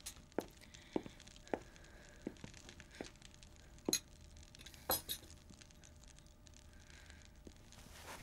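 Glass or china clinking: light knocks about twice a second, then two louder ringing clinks about four and five seconds in, as cups or glasses are handled and set down.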